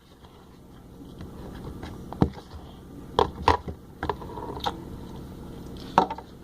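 Slime being mixed in a bowl after the activator has gone in: steady low scraping and squishing, with a few sharp knocks.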